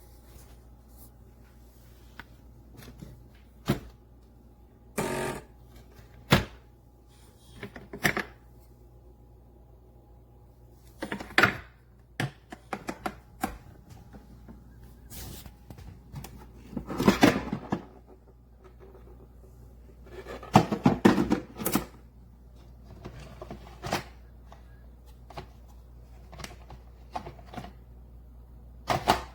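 Handling noise: irregular clicks, knocks and short clatters of objects being moved and set down, loudest about five, eleven, seventeen and twenty-one seconds in, over a faint steady hum.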